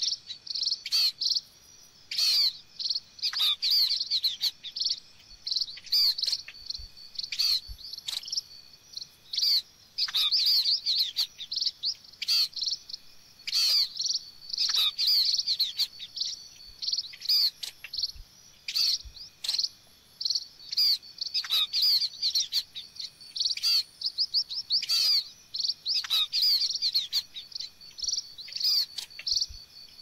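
Munias, small grass finches, chirping: high, thin calls in quick runs every second or two, some overlapping.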